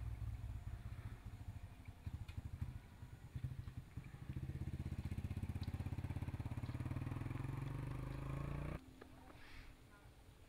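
A motor vehicle's engine running close by with a fast pulsing beat, its pitch rising steadily from about four seconds in as it accelerates, then cutting off suddenly near the end and leaving only faint background.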